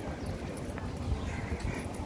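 Footsteps on brick paving while walking, with a steady low rumble on the microphone.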